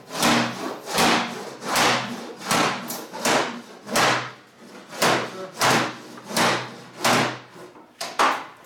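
A series of about a dozen sharp knocks or clunks, evenly spaced at a little more than one a second, each fading quickly.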